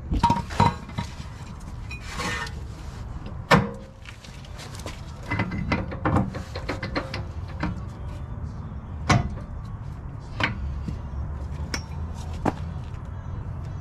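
Scattered metal clunks and knocks as a Honda CR-V front spindle, brake caliper attached, is handled and fitted into a car's front suspension, over a low steady rumble. The loudest knock comes about three and a half seconds in.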